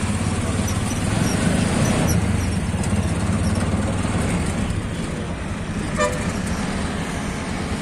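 Road traffic heard while riding in a moving vehicle: a steady engine and road rumble, with a short horn toot about six seconds in.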